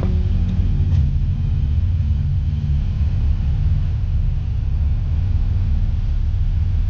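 Jeep engine running with a steady low rumble while crawling over rocks.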